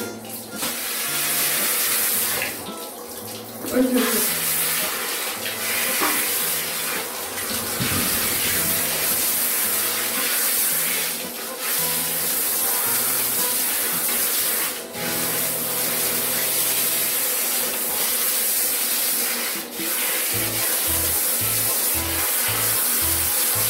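Handheld shower head spraying water onto a dog's wet coat: a steady hiss that cuts out briefly a few times.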